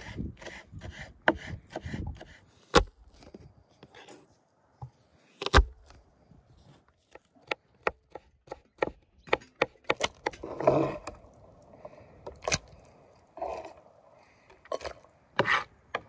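Kitchen knife chopping vegetables on a wooden cutting board: irregular quick strokes, with a few single, sharper knocks standing out.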